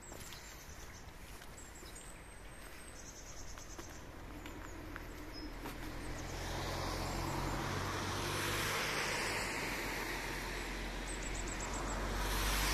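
A motor vehicle's engine hum that grows steadily louder from about five seconds in, over outdoor road-traffic noise.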